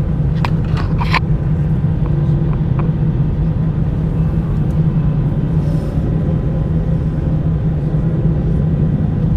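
Airbus A320 cabin noise beside the wing, with the jet engines running at low power on the ground before takeoff: a steady low rumble and hum. A few brief clicks come in the first second or so.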